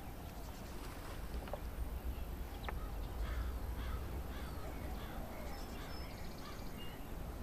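Faint bird calls, a run of short chirps, over a low steady outdoor rumble.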